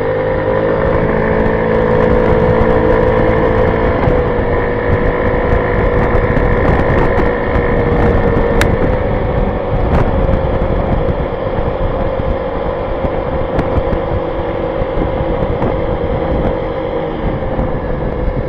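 Honda Ruckus 49cc single-cylinder four-stroke scooter engine running at a steady cruising speed, with wind rushing over the helmet-mounted microphone.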